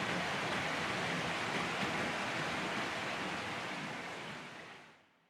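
River water flowing, a steady rush that fades out near the end.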